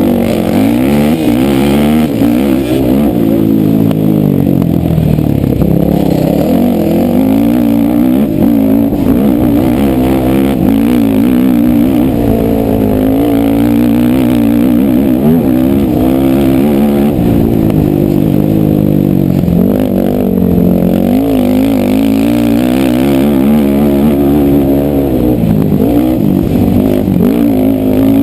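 A field of racing ATVs at full throttle off the start, many quad engines revving together. Their pitches keep rising and falling as the riders accelerate and shift.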